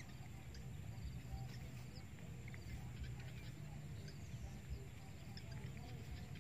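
Open-field ambience: a low rumble of wind on the microphone, with scattered faint, short high chirps.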